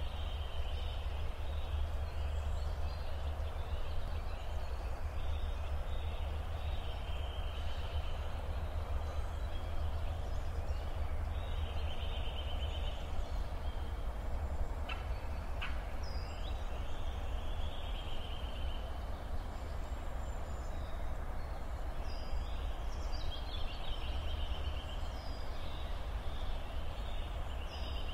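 Outdoor ambience: wind buffeting the microphone as a steady low rumble, with birds calling in short trills every couple of seconds.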